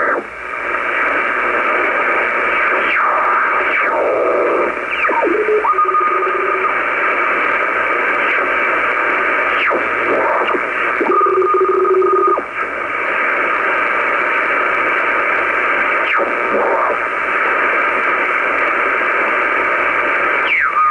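Shortwave receiver in upper sideband being tuned across the band: steady static hiss with whistling tones that slide in pitch as carriers pass through. Twice a pair of steady tones holds for about a second.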